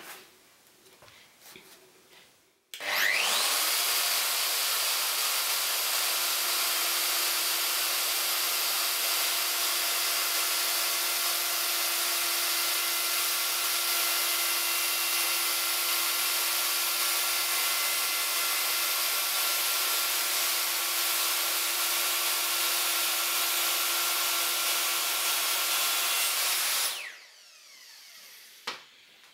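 Hand-held electric router with a roundover bit starting up with a quick rising whine about three seconds in, then running steadily at full speed as it cuts a roundover along the edge of a wooden frame. It switches off near the end and spins down.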